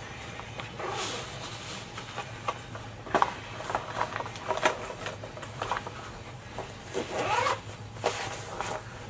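Coloured pencil scratching over sketchbook paper in quick strokes, with a few sharp taps among them.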